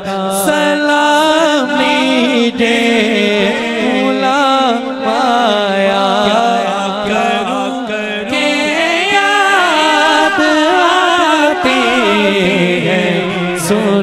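A man singing a naat into a microphone through a sound system, in long, winding melismatic lines held without a break, over a steady low drone.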